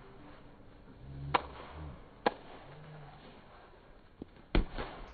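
A volleyball being struck by players' hands and arms during a rally: three sharp smacks, about a second and a half in, a second later, and near the end as the ball is spiked at the net.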